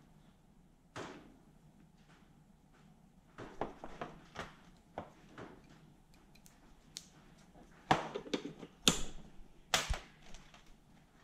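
Small clicks, taps and rustles of hands handling a plastic wiring connector and loose wires on a workbench, with a few louder knocks in the last few seconds.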